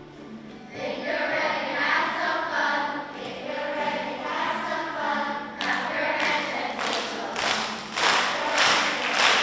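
A group of children singing a school song together, from about a second in. From about halfway through they clap their hands in time, about twice a second, under the singing.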